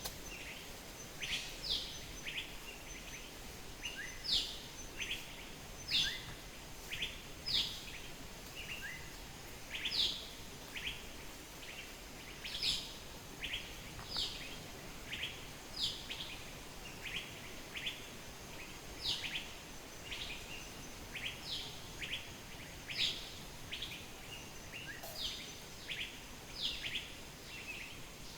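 Birds calling with short, quick chirps that fall in pitch, repeated every second or so, over a steady rushing background from a nearby waterfall.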